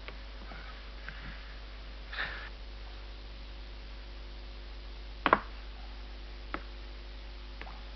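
Steady hiss and hum of an old film soundtrack, broken by a few sharp clicks: the loudest comes about five seconds in, with fainter ones later.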